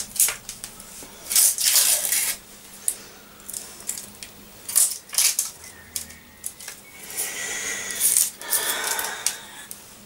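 Dry, papery onion skin being peeled off by hand: a run of irregular crackles and rustles.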